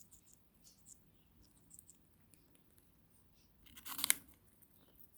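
Quaker parrot's beak biting and tearing at a piece of apple: faint small crunches and scrapes, with one louder crunch lasting about half a second around four seconds in.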